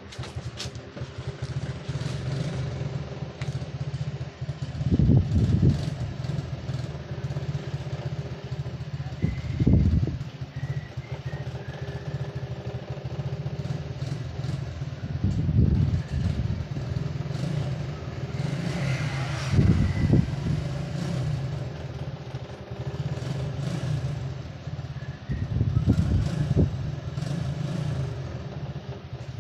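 Low, steady rumble of motor traffic with several louder swells a few seconds apart, like vehicles passing.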